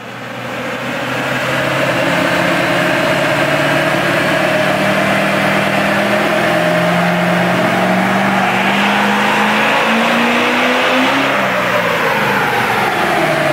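Duramax 6.6L V8 turbo diesel running on a chassis dynamometer, its revs holding steady, then climbing for a few seconds and falling away near the end.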